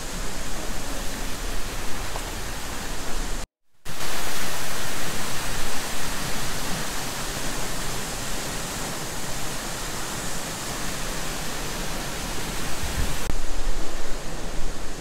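Steady roar of a tall waterfall, an even rush of falling water. It cuts out abruptly for a moment about three and a half seconds in, then comes back a little louder.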